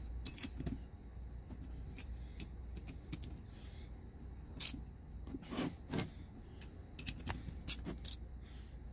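Scattered light clicks and taps of metal parts on a GTP38 turbocharger being handled as its turbine-housing bolts are snugged by hand, over a faint steady hum.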